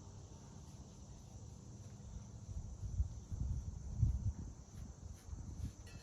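A hand rubbing and pressing paint onto a stretched canvas, giving irregular dull thumps and rubbing, strongest about three and four seconds in. Faint crickets chirp steadily in the background.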